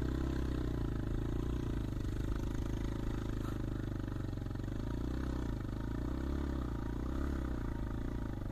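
Motorcycle engine running, its pitch rising and falling.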